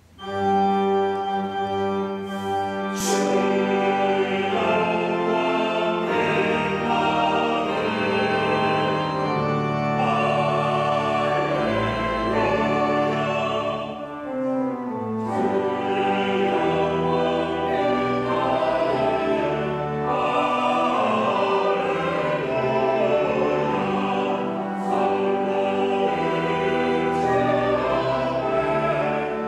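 Mixed church choir singing a hymn anthem in Korean in several-part harmony, with 'Hallelujah' refrains. It starts suddenly and loudly at the opening and carries on steadily.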